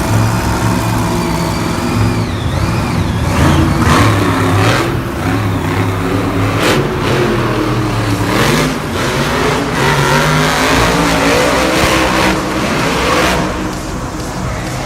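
Engines revving, their pitch rising and falling repeatedly, with a few sharp bangs among them.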